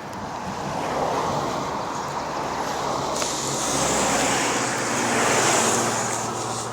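A motor vehicle passing on the road, its engine and tyre noise swelling to a peak and fading near the end, heard over wind on the microphone of a moving bicycle.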